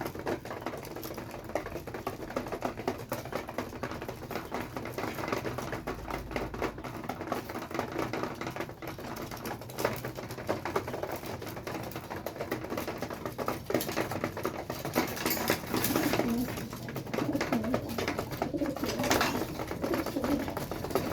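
Homing pigeons pecking at feed, a rapid patter of small clicks, with pigeons cooing over the last few seconds.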